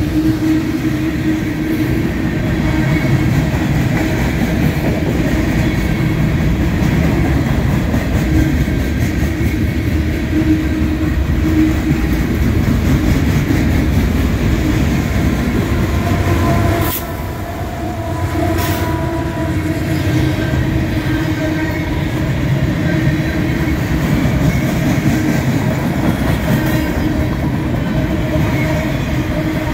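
Freight cars of a mixed manifest train (tank cars, boxcars and flatcars) rolling past close by: a loud, steady rumble and clatter of steel wheels on the rails. About halfway through it dips briefly, and two sharp clicks come a second or two apart.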